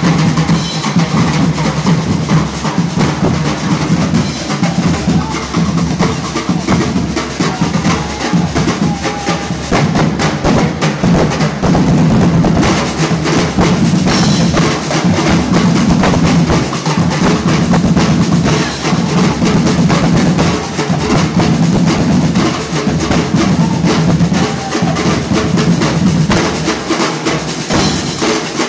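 Ati-atihan drum corps drumming on bass drums, snare drums and a rack of tenor drums with cymbals, a loud, dense and continuous festival beat.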